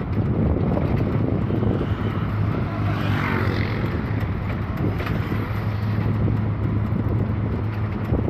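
Steady engine drone of a moving bus with road and wind noise at an open window, a low hum under a broad rush. A brief louder hiss comes about three seconds in.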